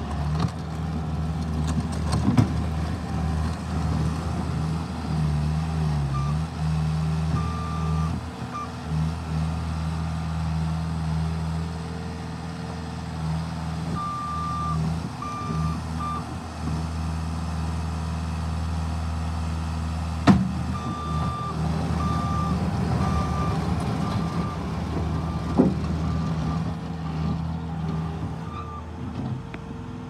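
Bobcat T180 compact track loader working: its diesel engine runs steadily, rising and falling with load, while its backup alarm sounds in several runs of evenly spaced beeps. Two sharp clanks, about two thirds of the way through and again some five seconds later.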